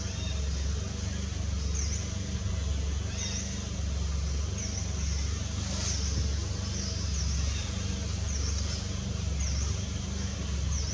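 Steady outdoor background noise: a low rumble that swells and fades about once a second, under a constant high hiss that dips at regular intervals.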